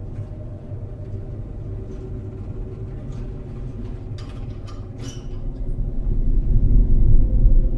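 A low, steady rumbling drone from a film soundtrack, with a few brief clattery knocks midway and a swell to a louder, deeper rumble over the last two seconds.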